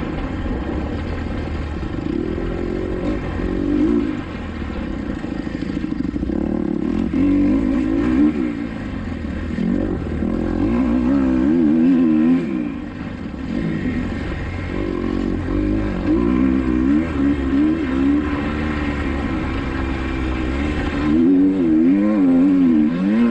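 Kawasaki KX250XC dirt bike engine ridden hard on a motocross track, its pitch rising and falling again and again as the throttle is opened and closed.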